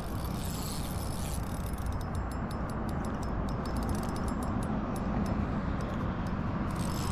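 Fishing reel clicking in quick, irregular runs while a hooked trout is played on the line, over a steady background noise. The clicking is densest in the middle.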